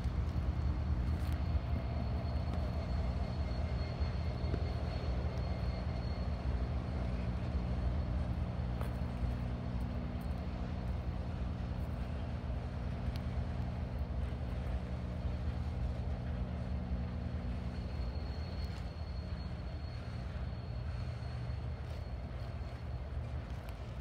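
Double-stack intermodal container train rolling past, a steady low rumble of wheels on rail that eases slightly toward the end. A faint high squeal rides over it for the first few seconds and again near the end.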